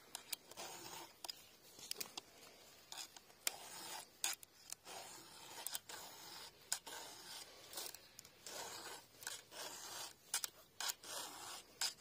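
Round chainsaw file rasping across the cutter teeth of a chainsaw chain in a run of short, irregular strokes. The chain is being sharpened because its teeth have gone dull and it cuts poorly.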